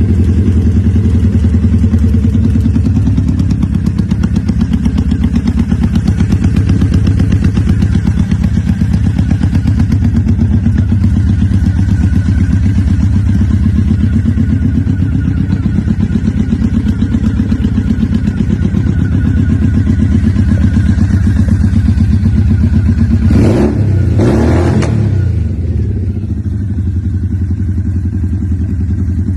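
Triumph Speed Twin motorcycle's parallel-twin engine running at idle, its revs rising and falling gently a few times. About 24 seconds in there are two brief loud noise bursts, after which the engine settles a little quieter.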